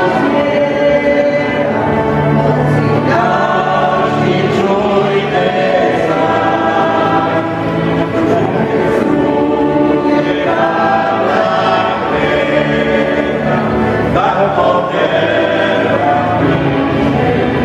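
Choir singing church music, held notes and chords continuing without a break.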